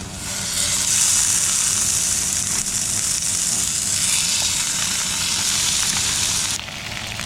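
Hottentot fish fillets frying in olive oil in a pan: a steady sizzle that starts just after the beginning and drops off shortly before the end.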